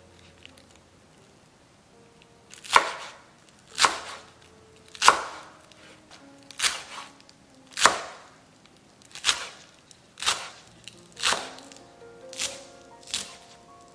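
Chef's knife chopping green onions on a wooden cutting board: about ten sharp cuts, roughly one a second, starting about three seconds in.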